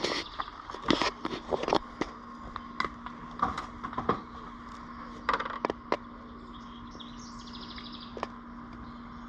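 Clicks, knocks and scrapes of a plastic quart bottle of motor oil being handled and poured into the engine's filler through a funnel, over a steady background hum. The handling noises come in clusters for about six seconds, then fall away.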